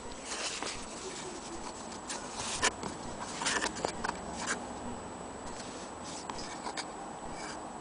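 Handling noise: irregular light clicks, taps and rustles of hands moving and touching the metal bed of an antique Willcox & Gibbs sewing machine, busiest in the middle, over a faint steady high whine.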